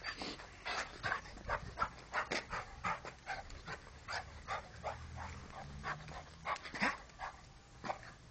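English Cocker Spaniel panting, short quick breaths at about three a second.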